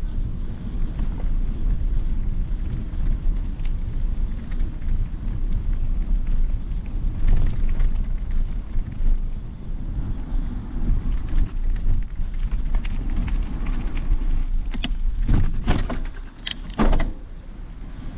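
Wind buffeting the microphone while riding a bicycle: a steady low rumble, with a few sharp knocks and rattles near the end.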